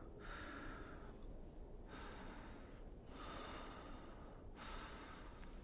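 A man breathing audibly and slowly, about four long breaths, each swelling and falling away.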